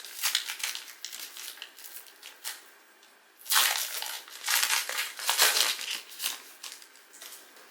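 Crinkling and crackling of a trading card pack's plastic wrapper being handled and torn open, with the loudest bursts a little past the middle.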